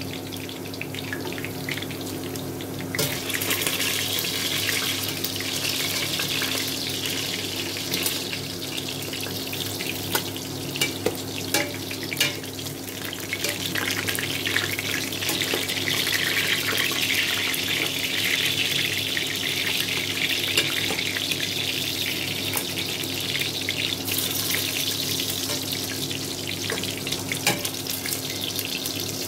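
Pork belly cubes sizzling steadily in hot oil in a stainless steel pot, with a few sharp clicks of metal tongs against the pot as pieces are lifted out.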